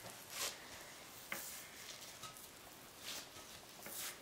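Faint squishing and rustling of plastic-gloved hands kneading soft cookie dough on a plate: a few soft swishes and a small click about a second in.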